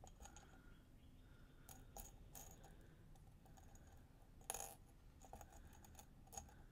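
Faint clinking of small beads as fingers stir and pick through them in a ceramic dish, a few light clicks scattered through, the loudest about four and a half seconds in.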